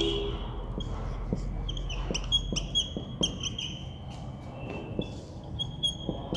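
Whiteboard marker squeaking and ticking on the board in short, quick strokes as words are written, over a low steady hum.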